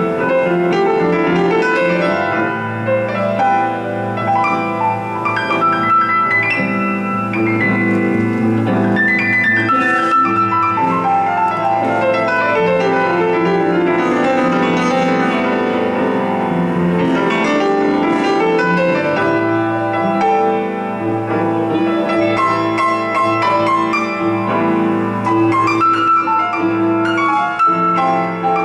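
Live instrumental band music led by grand piano, with electric guitar and bass underneath; a sweeping piano run falls and then climbs back up in the middle.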